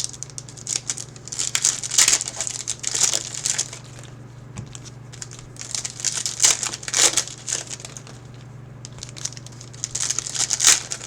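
Plastic wrapping on trading card packs crinkling and tearing as they are handled and opened. It comes in three bursts, with a steady low hum underneath.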